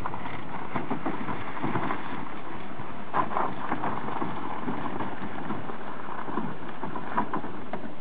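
robuCAR all-terrain robot platform driving away over rough gravel and dirt: irregular crunching and rattling knocks, a cluster of them about three seconds in, over a steady rushing noise.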